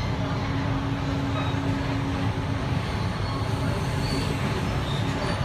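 Sydney electric suburban train running, heard from inside the carriage: a steady rumble of wheels on track with a steady hum that fades about halfway through.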